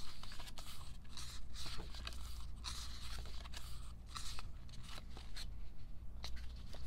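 Paper and plastic crinkling and rustling in irregular bursts as a K-pop album's contents are handled, over a low steady hum; the sound cuts in abruptly at the start.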